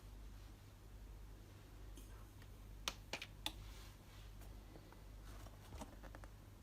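A few faint sharp clicks, three close together about three seconds in and a few lighter ones near the end, over a low steady hum.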